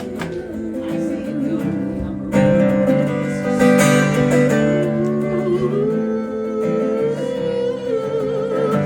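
Acoustic string band playing an instrumental break, a plucked guitar lead over the rhythm, growing louder about two seconds in.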